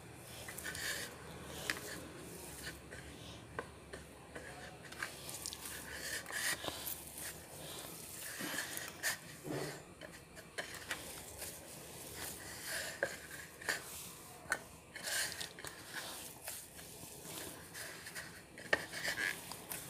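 Hands mashing and kneading crumbly fresh cottage cheese (chhena) on a ceramic plate: soft, irregular rubbing and squishing with frequent small clicks and taps against the plate.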